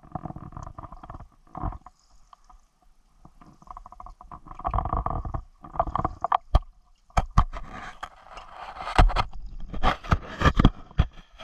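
Shallow stony stream heard underwater: rushing, gurgling water with irregular sharp clicks, knocks and scraping against the rocks, growing busier and louder in the second half.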